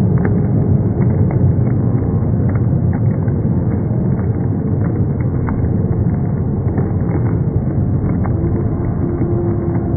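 Basketball crowd cheering and shouting in an indoor arena: a loud, continuous, muffled roar with a few sharp knocks.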